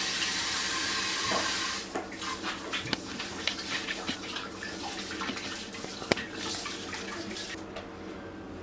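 Kitchen tap running for nearly two seconds, then a run of small clicks and knocks, typical of dishes being handled at the sink.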